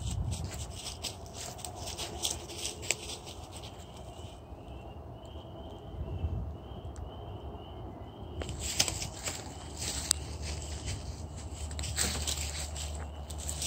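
Outdoor night ambience: rustling and sharp clicks close to the microphone, a faint series of repeated high chirps about twice a second in the middle, and a low steady rumble underneath.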